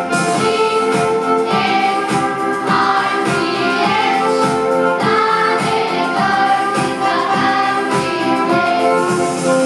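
A song sung by a group of voices over instrumental accompaniment with a steady beat.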